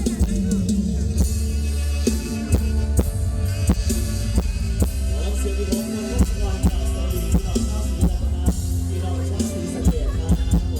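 Mor lam band music playing loudly: a steady drum-kit beat over heavy bass, with held instrument notes.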